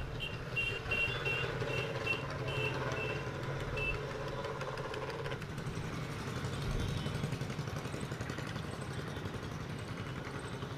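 A steady low engine hum, with a run of short high-pitched pips at about three a second that stops about four seconds in.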